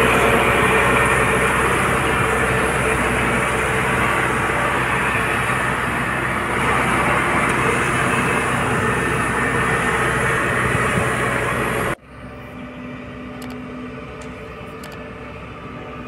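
Single-drum road roller's diesel engine running loud and steady as the machine works. About twelve seconds in, the sound drops suddenly to a quieter background with a few sharp clicks.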